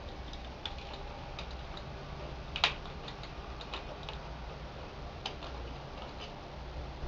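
Scattered small clicks and taps of the pushrod cover tubes on a Harley-Davidson Ironhead Sportster V-twin being pushed down and turned loose by hand, with one sharper click about two and a half seconds in.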